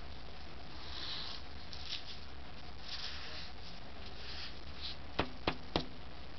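Marker pen strokes scratching on paper in short soft swishes over a steady low hum, then three sharp taps in quick succession near the end.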